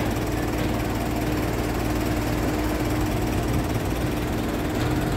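Heavy construction machinery running steadily, a constant engine drone with a steady hum running through it.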